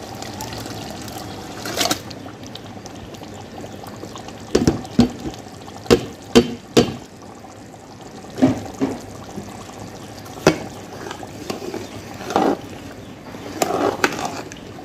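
Thick onion gravy pouring from a plastic tub into a large aluminium pot of boiling stock, a steady liquid pouring and bubbling. From about a third of the way in, a series of sharp knocks against the pot, and near the end a metal ladle stirring the curry.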